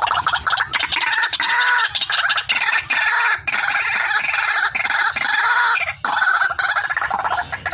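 White-breasted waterhen (ruak-ruak) calling: a dense run of loud, rapidly repeated calls that breaks off briefly about six seconds in, then resumes.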